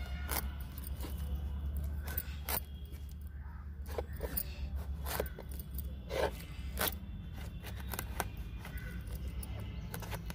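Kitchen knife cutting into the hard rind of an ash gourd (petha), irregular short scraping and crunching strokes as the blade is worked round the fruit, over a steady low hum.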